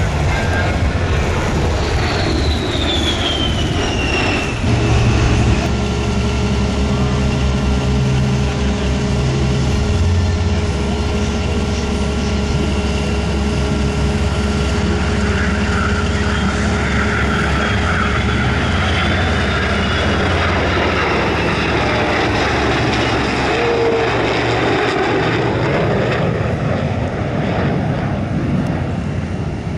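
A-10 Thunderbolt II's twin turbofan engines passing with a falling whine a few seconds in. Later comes the steady engine noise of a formation of jet fighters and a propeller-driven fighter flying over.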